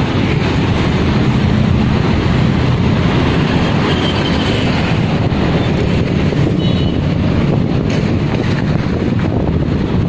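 Steady rumbling noise of road traffic, motorbikes and cars, crossing the bridge.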